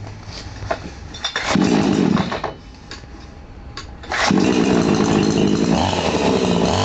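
Two-stroke chainsaw being started after its carburetor's two mixture screws were reset to one and a half turns out. After a few clicks there is a short burst about a second and a half in. About four seconds in the engine catches and keeps running steadily.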